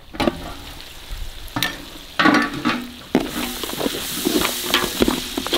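A metal pot lid is lifted off with clanks and a brief ringing scrape. About three seconds in, king crab pieces are heard sizzling in masala as a spatula stirs them around the pot.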